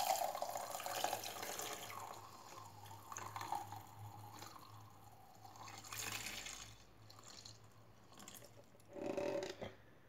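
Blended kiwi juice pouring in a thin stream from a blender jar through a plastic mesh sieve into a glass jug, trickling and dripping, and fading as the pour thins out.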